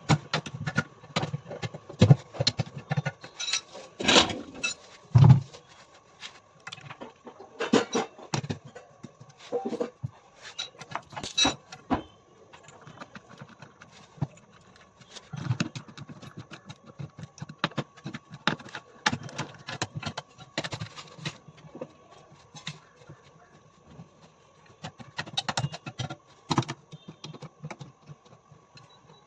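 Irregular knocks, clinks and thuds of tools and metal parts being handled and set down during washing-machine drum repair work, over a faint steady hum.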